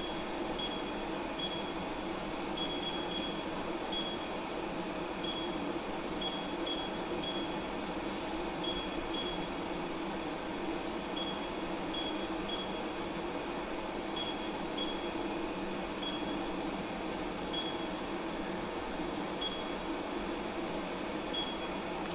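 Steady hum of the sintering furnace's fans running, with short high beeps from its control panel at irregular intervals, one or two a second at times, as keys are pressed to edit the program.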